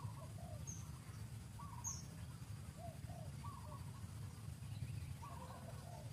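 Short chirping animal calls, often in pairs and recurring every second or two, over a steady low rumble, with two brief high squeaks in the first two seconds.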